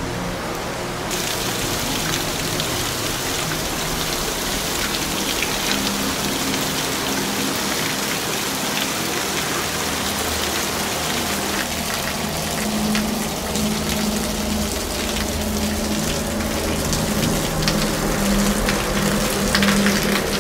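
Heavy rain falling on paving and a waterlogged yard: a steady hiss with dense patter of drops splashing into puddles, turning brighter about a second in.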